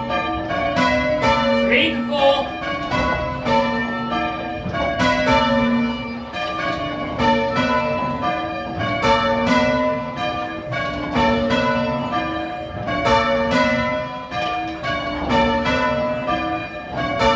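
Church tower bells in change ringing: a set of bells struck one after another in a steady, repeating rhythm, each note ringing on into the next.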